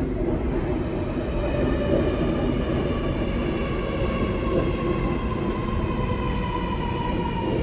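Sydney Metro driverless train (Alstom Metropolis) pulling along the platform, its electric traction motors whining in several tones that fall steadily in pitch as it slows, over a steady rumble of wheels on rail.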